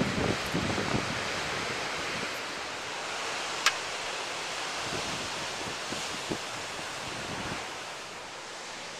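Ocean surf breaking and washing in over rocks and sand, a steady rushing noise. Wind buffets the microphone in low thumps during the first second or so, and there is a single sharp click a little over a third of the way in.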